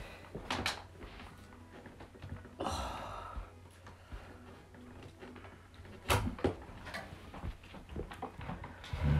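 Scattered knocks and bumps of handling, with a short rustling stretch about three seconds in and louder knocks near the middle and the end.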